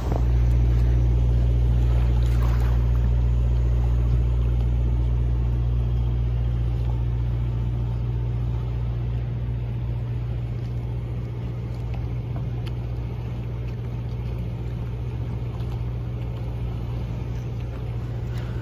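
A Detroit Diesel engine in a 1980 Silver Eagle bus idling steadily: a deep, even drone that slowly grows a little quieter.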